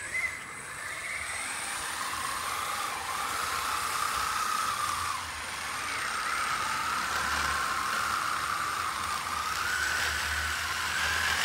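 Remote-controlled electric aircraft tug whining as it tows and turns a Cub on 35-inch, 3 PSI bush tires. The motor's pitch wavers up and down with speed over a steady hiss.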